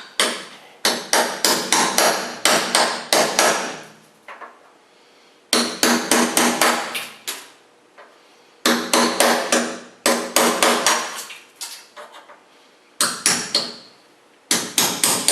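Hammer driving a cold chisel under rivet heads to shear them off, in four quick runs of sharp metal-on-metal blows with short pauses between.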